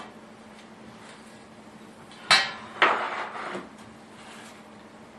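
Small kitchen items handled on a wooden table: a sharp, ringing clink a little over two seconds in, then a second knock followed by a short rattling clatter lasting under a second.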